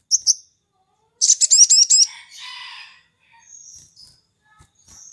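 Olive-backed sunbird calling: two short, high chirps, then about a second in a quick run of sharp, high whistled notes lasting about a second, followed by a lower buzzy trill and a few faint chirps.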